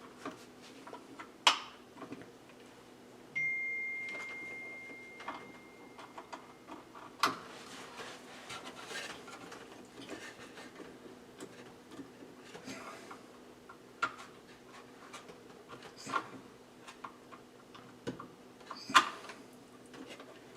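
Scattered clicks and knocks of hands and tools working on a ceiling smoke detector's plastic mounting plate and screws. About three seconds in, a single high ringing tone starts suddenly and fades away over about three seconds.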